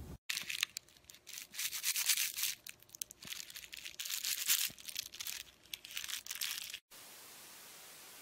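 Scratchy rubbing sounds in irregular bursts that come and go for about six and a half seconds, then stop abruptly. A steady faint hiss follows.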